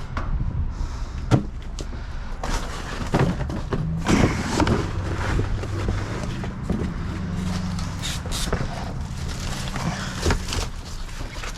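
Rummaging through bags and produce in a dumpster: scattered knocks, clicks and rustling over a low steady hum.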